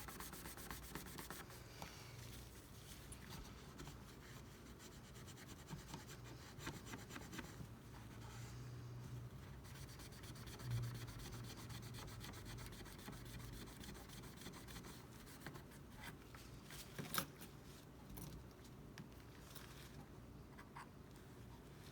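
Faint, irregular scraping and rubbing of a hand tool working old adhesive and glass residue off an iPad's metal frame, with scattered light clicks and one sharper tap about three-quarters of the way through.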